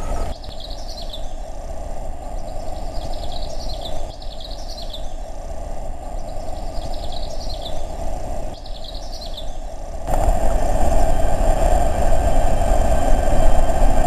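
Steady roar of Chitrakoot Falls in full spate, with birds chirping in short repeated phrases over it. About ten seconds in, the roar grows louder and the chirps are no longer heard.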